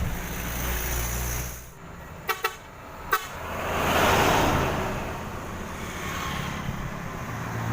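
A truck's horn gives three very short toots, then the truck passes close by, its engine and road noise swelling to a peak about four seconds in and fading away.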